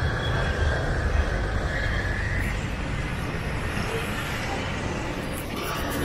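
Road traffic passing over the bridge, heard as a steady rumble with a faint engine tone rising and falling through it.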